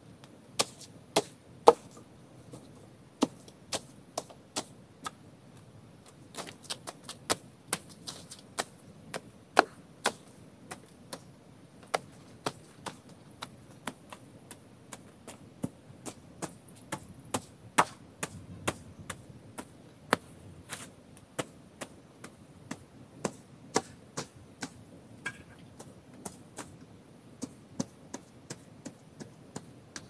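Sharp, irregular chops of a machete slashing weeds and undergrowth, about one to three strokes a second, with quick runs of several strokes now and then.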